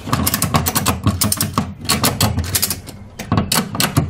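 Ratchet buckle of an Erickson E-Track wheel tie-down strap being cranked: each stroke of the handle gives a quick run of pawl clicks, about four strokes in all, tightening the strap over the tire.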